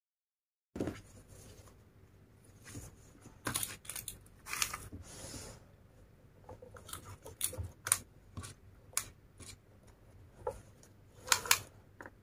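Handling noise of a retractable tape measure being pulled out and laid along a crocheted cord bag handle: a run of short sharp clicks and rustles starting about a second in, the loudest cluster near the end.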